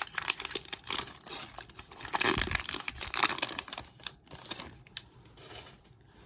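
Foil wrapper of a baseball card pack being torn open and crinkled by hand, a dense crackling that dies away about four seconds in.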